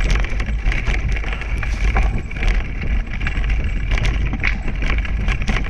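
Dog-scooter wheels rolling fast over a rough dirt trail, a steady rumble with frequent small rattles and clicks, and wind buffeting the microphone.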